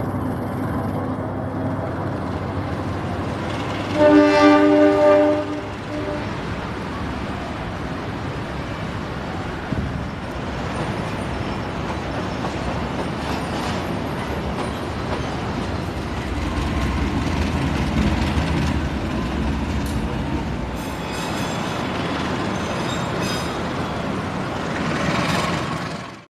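A freight train of oil tank wagons rolls past with a steady rumble and wheel noise. About four seconds in, the locomotive's horn sounds one chord-like blast lasting about a second and a half.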